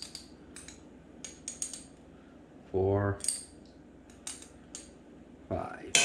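Small metal measuring spoon clinking and tapping against the pot and containers while dry mustard is measured in: a dozen or so light, scattered clicks, with a louder cluster of clinks near the end. A short hum of voice about halfway.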